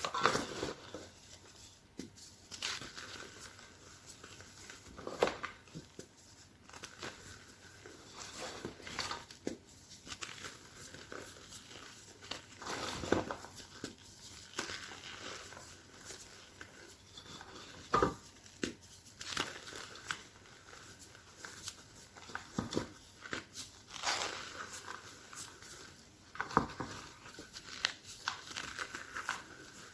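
A piece of pressed chalk being crushed, crumbling in irregular crunches and squeaks, with a few sharper loud cracks among them.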